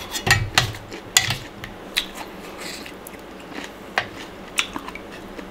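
Close-up chewing of a mouthful of pounded sator-bean and shrimp salad with raw vegetables: wet crunches and clicks, loudest about a third of a second in, then scattered single crunches, with a spoon tapping the metal bowl.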